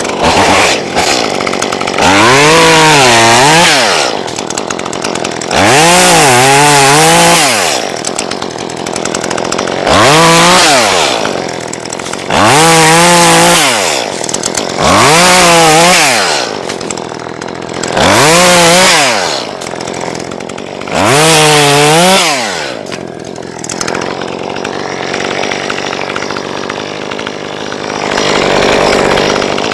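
Chainsaw revved up to full throttle seven times in bursts of a couple of seconds, the pitch climbing, sagging and dropping back to a lower run between bursts. It is quieter for the last several seconds.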